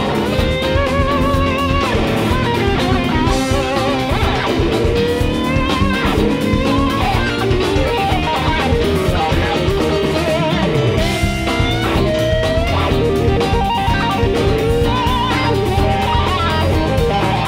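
Live rock band playing an instrumental passage: an electric guitar leads with bent notes and wavering vibrato over bass and drums.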